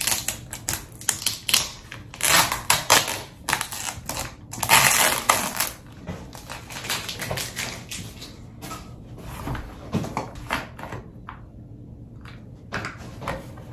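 Child-resistant plastic cap on a large Drano clog-remover bottle being twisted and forced by hand: a quick run of hard plastic clicks and crackles, densest over the first six seconds, then scattered clicks.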